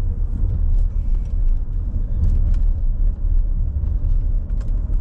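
Range Rover L405 driving slowly, heard from inside the cabin as a steady low engine and road rumble with a few faint clicks. The engine is in restricted-performance limp mode, the engine management light on for a MAP sensor low-input fault.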